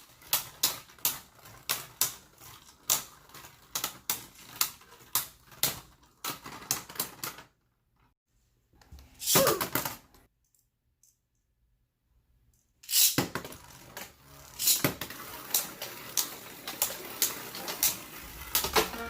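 Beyblade Burst spinning tops clashing in a plastic stadium: rapid, irregular clacks of the tops striking each other and the walls. The clacking stops for several seconds in the middle, with one short rushing sound, then starts again.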